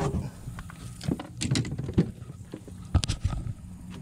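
Knocks and taps from handling a just-caught largemouth bass over a cooler on the boat deck, a handful of sharp strikes over a steady low hum.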